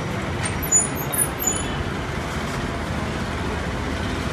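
Steady road traffic noise from the street beside the food stall, with a short knock about three-quarters of a second in and a few faint high clinks just after it.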